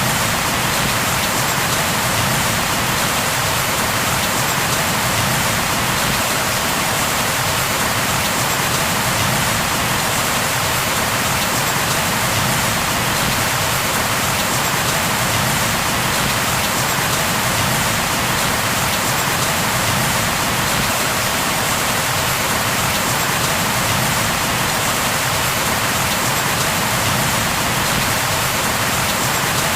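Steady, constant rain falling on a surface, an even hiss of drops with no thunder or other events.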